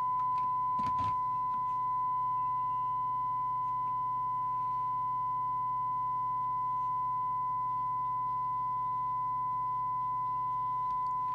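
Steady 1 kHz test tone from a Fidelity CB3000FM CB base station's speaker as its receiver picks up a tone-modulated test signal at S9, over a low hum. A brief click about a second in.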